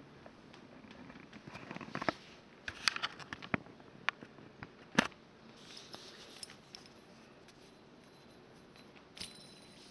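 Handling of a heavy metal ship's-wheel fidget spinner: a run of light clicks and taps about two to four seconds in, a sharp click about five seconds in, and another near the end.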